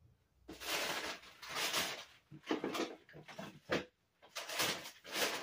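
Plastic containers and packed items being handled and shifted: a string of rustling and scraping bursts, about half a dozen, with short gaps between them.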